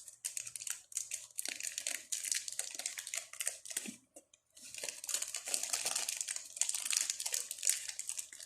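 Packaging crinkling and tearing as the earrings of a jewellery set are unwrapped by hand, in irregular bursts of crackle with a short pause about four seconds in.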